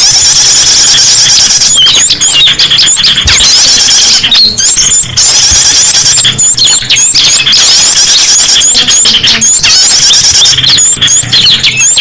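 Loud, dense chorus of many small songbirds chirping and twittering at once, with rapid high-pitched calls and short hooked whistles that overlap continuously. This is a bird-luring recording that mixes the calls of many small wild birds.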